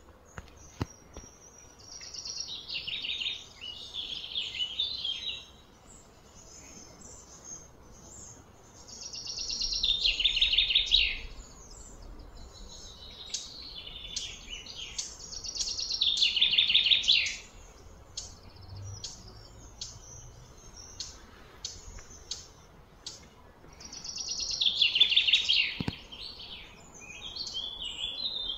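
Bird song: loud, high-pitched trilling phrases that fall in pitch, four of them about seven seconds apart, with scattered short chirps between.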